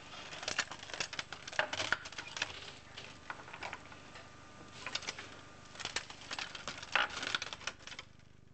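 Irregular clicking and clattering of a hand-cranked kinetic model as its wire crank turns the homemade mechanism; the clatter stops abruptly near the end.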